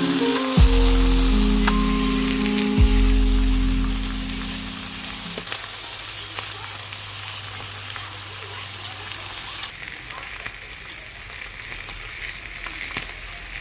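Food frying in a pan, a steady sizzle. Background music plays over it and stops about five seconds in, leaving the sizzle alone.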